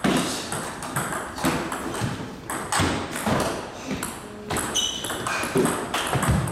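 Table tennis rally: a celluloid ball clicking off rubber paddles and the table in quick alternation, roughly two hits a second.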